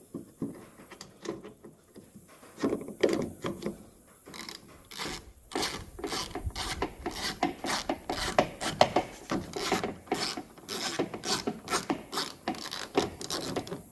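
Socket ratchet clicking in quick, irregular strokes, with scraping and rubbing, as the nut holding a Dodge Ram door handle is run in.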